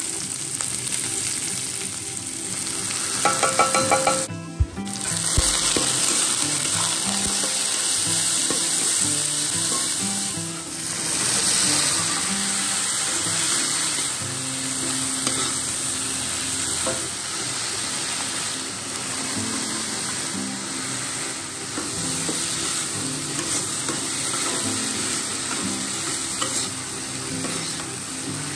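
Food sizzling in hot oil in a wok as chopped onions go in, then a spatula stirring and scraping a panful of beans and vegetables as they fry, a steady sizzle throughout.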